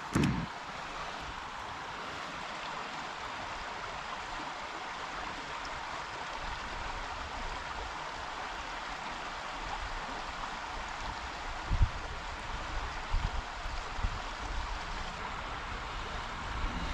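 Steady rushing of a creek running high after rain, with a few low thumps in the second half.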